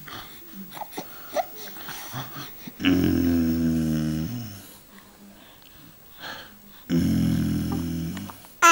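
Baby's voice making two low, creaky, growl-like grunts, each about a second and a half long, one about three seconds in and one near the end.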